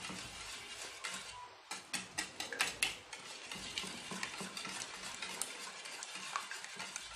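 Wire whisk beating eggs and sugar in a stainless steel bowl, the wires scraping and clicking against the metal in a quick, even rhythm. A run of sharper clicks comes about two seconds in.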